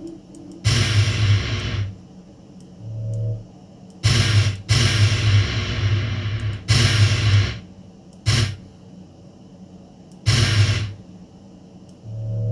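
Notes from a Kontakt software instrument played in FL Studio and heard through a loudspeaker: about six short, hissy, whooshing tones with a low hum underneath, each starting and stopping abruptly, and a brief low note about three seconds in.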